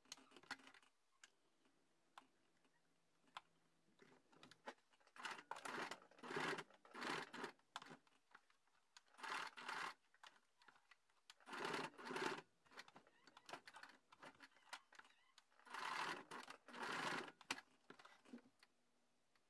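Domestic sewing machine stitching velcro onto a fabric strap in about four short runs of a second or two each, with quiet pauses between them.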